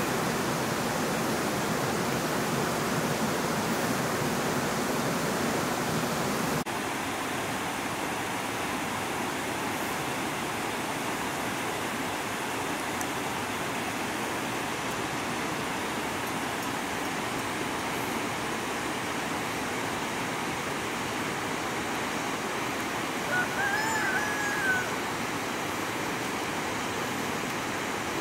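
Steady rush of a mountain stream, a little quieter after a cut about seven seconds in. A brief high call sounds near the end.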